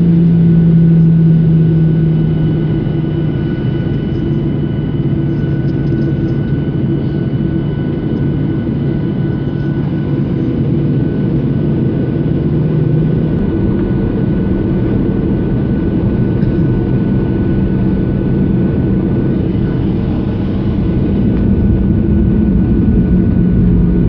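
Jet airliner's wing-mounted turbofan engine running at taxi power, heard inside the cabin as a steady drone with a few thin whining tones. The low pitch steps slightly about halfway through, and it grows a little louder near the end.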